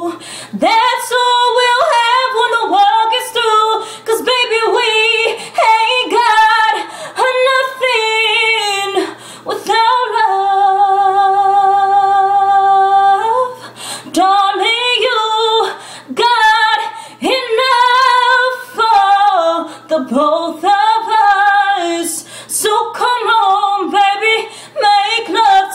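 A woman singing unaccompanied, with quick melismatic runs and, about ten seconds in, a long held note with vibrato for three seconds or so.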